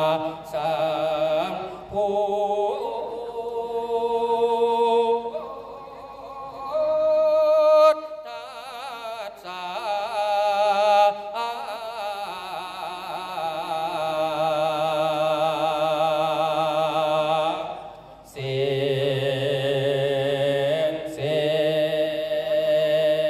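A man's voice chants the Isan su khwan soul-calling blessing into a microphone in a drawn-out melodic style. He holds long notes with a wavering vibrato, in phrases broken by short breaths.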